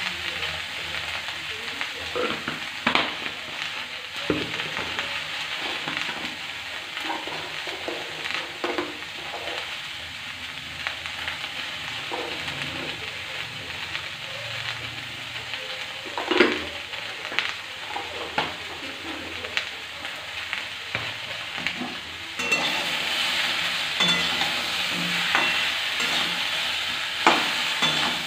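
Mixed vegetables sizzling in hot mustard oil in an aluminium kadai, with occasional sharp clicks. Near the end the sizzle gets louder as a metal spatula stirs and scrapes the vegetables around the pan.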